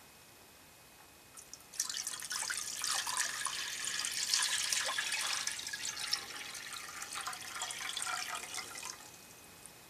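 Water poured from a glass bowl into an empty earthenware donabe pot, splashing and pattering steadily as the pot fills. It starts about two seconds in and stops about a second before the end.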